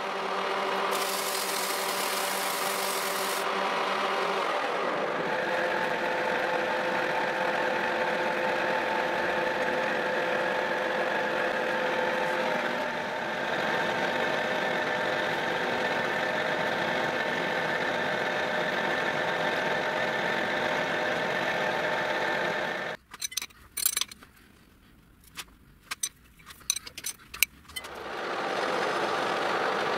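Metal lathe running, a steady machine hum with several held tones. About 23 seconds in it cuts out to near quiet with a few scattered clicks and taps, and it starts up again near the end.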